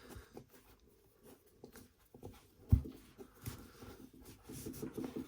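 Thick rope being pulled and worked through a Palomar knot on a fishing magnet: soft rubbing with scattered small clicks of handling, and one dull knock about three seconds in.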